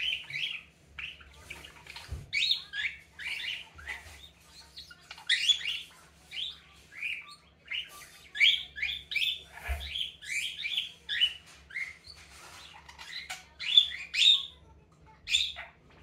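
Budgerigar calling in a quick run of short chirps, about two a second, with a short pause near the end: the budgie is imitating cockatiel calls.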